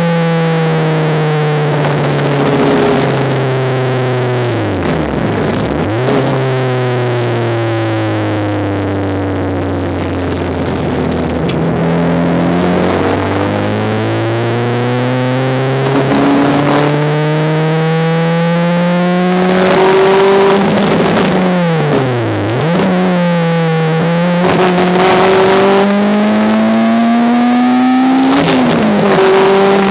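Racing Honda Civic's engine heard onboard at speed. Its pitch falls slowly as the car slows for a long stretch, then climbs as it accelerates, with several quick drops and climbs in the last third as it shifts gears.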